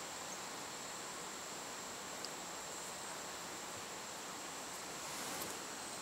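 Faint steady high-pitched insect trill over quiet outdoor background noise.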